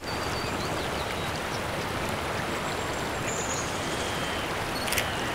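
Steady outdoor ambience of rushing water like a stream, with scattered high chirps over it and one sharp click near the end.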